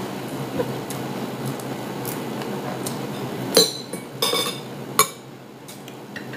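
Metal fork and spoon clinking against a ceramic plate while eating rice: a steady background hum, then three sharp clinks in the second half.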